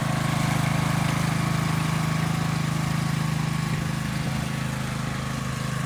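Lawn tractor engine running steadily while it tows a plug aerator across the lawn.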